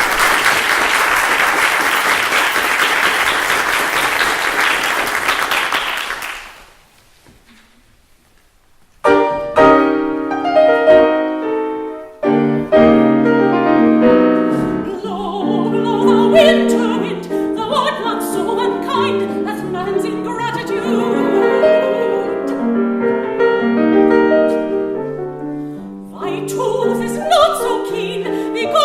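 Audience applause for about six seconds, a short hush, then a piano begins the accompaniment of a classical art song about nine seconds in. A trained classical singing voice with vibrato comes in over the piano.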